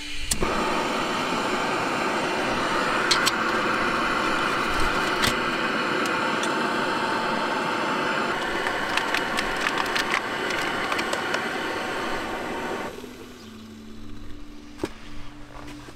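Gas burner of a small integrated canister stove running with a steady hiss, with a few light clicks and knocks from handling the stove and pot. The hiss cuts off suddenly about three seconds before the end.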